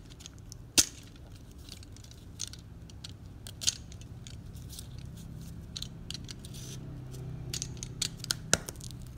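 Scattered light clicks, crackles and rustles of a parcel's paper and plastic packaging being handled, with a sharp click about a second in and another near the end, over a faint steady low hum.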